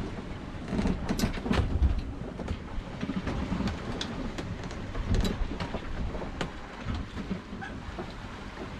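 A Vancouver 34C sailing yacht moving through the sea, heard from inside the cabin: a low rumble of water along the hull with irregular knocks and clicks from the boat as it works in the waves.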